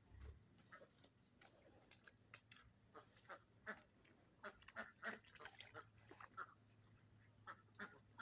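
Faint farmyard poultry calls: many short, scattered quacks and clucks, thickest in the middle.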